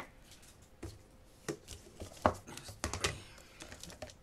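Hard clear plastic storage box and its lid clicking and knocking as they are handled and set down on a table: about six sharp clacks, the loudest a little past two seconds in.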